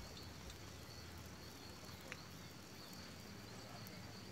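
Faint outdoor ambience with a steady high-pitched insect drone, and one faint click about two seconds in.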